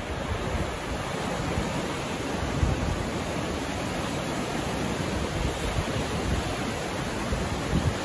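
Steady rush of whitewater rapids on Strömmen churning below a stone bridge, a continuous even roar of fast-flowing water.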